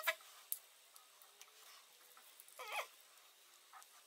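Metal spoon squeaking against glass while thick honey is scooped from a glass jar and scraped off into a glass bowl: a few short squeaks that bend in pitch, one at the start, one in the middle and one at the end.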